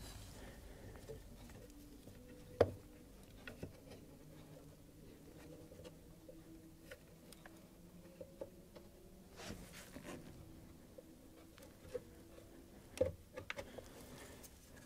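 Faint scattered clicks, taps and rustles of hands fitting parts and wiring around an ABS pump, with two sharper knocks, one about two and a half seconds in and one near the end.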